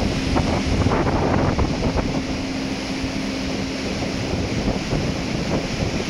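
Wind buffeting the microphone over the rush of churned sea water in a moving ship's wake, with a steady low hum from the ship running under way.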